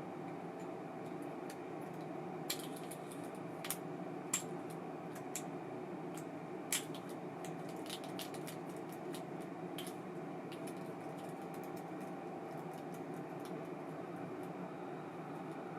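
Small hard clicks from an ABU Ambassadeur 2500C baitcasting reel being handled, several sharp ones in the first seven seconds and then fainter ticks, over a steady low hum.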